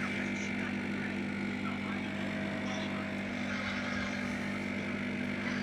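Steady mechanical hum with a constant low drone and a faint higher whine, unchanging throughout, with a few faint handling ticks.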